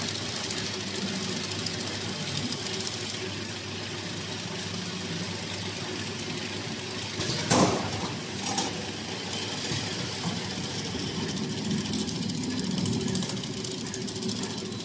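Paper straw group packing machine running steadily as it wraps bundles of straws in film. About halfway through there is one sharp clack, and a lighter one follows a second later.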